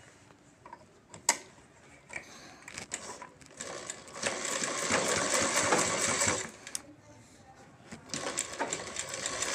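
Sewing machine stitching pleated fabric in two short runs, the first about four seconds in and the second starting near the end, with a few light clicks before the first run.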